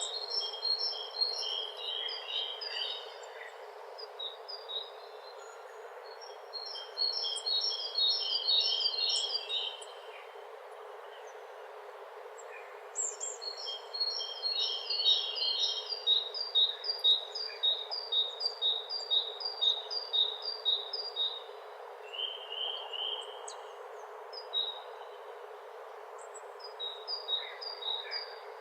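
A songbird singing in repeated phrases of quick, high chirping notes, each bout lasting a few seconds with short pauses between, the longest running about eight seconds through the middle. A steady background hiss runs underneath.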